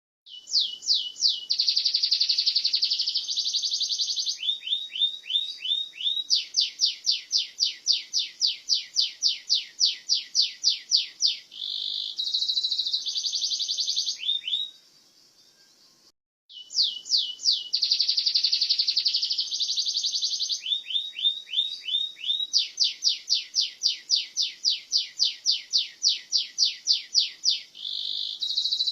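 Domestic canary singing a long song of rapid, high-pitched trills and buzzy rolls, with repeated notes at about three a second in the longer trills. About halfway through there is a brief pause, then the identical song phrase sequence starts over.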